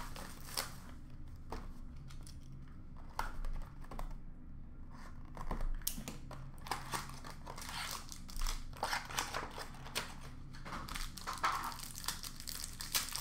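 Hockey card packs being opened by hand: the wrappers crinkle and tear in irregular bursts, with light clicks of handling.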